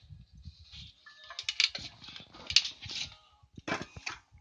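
Light clicking and clattering of tools or parts being handled, with a quick run of clicks in the middle and a sharper knock near the end.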